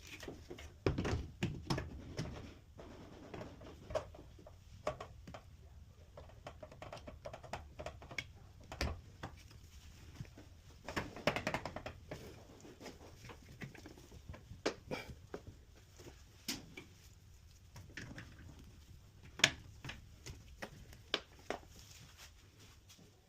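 Irregular clicks, taps and knocks of hands and tools handling washer parts, with busier clusters about a second in and around eleven seconds, and a single sharp click late on.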